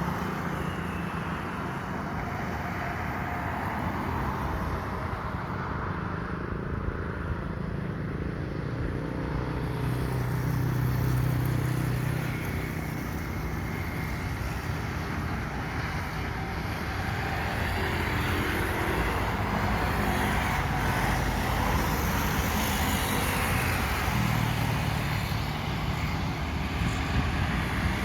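Steady rumble of an Airbus A320's jet engines as the airliner rolls after landing, getting a little louder past the middle.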